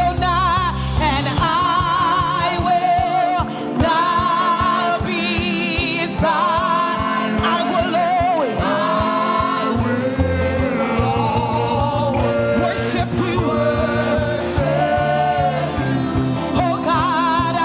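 Live gospel praise-and-worship music: a singer holds long, wavering vibrato notes and runs over a band accompaniment with steady bass notes.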